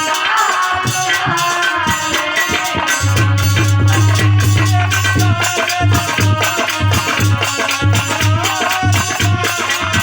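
Bhajan music: a wavering melody over a busy, even percussion rhythm of hand drum and shaker, with a pulsing low bass.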